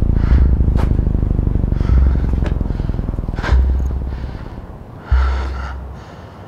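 A man breathing heavily in gasping breaths, about one a second, over a deep low pulse that returns about every one and a half seconds and fades each time. A few sharp clicks come in the first seconds.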